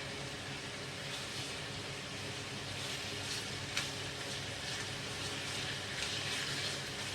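Pieces of duck frying in hot oil in a pan: a steady sizzle with occasional sharp pops and crackles, the clearest a little under four seconds in.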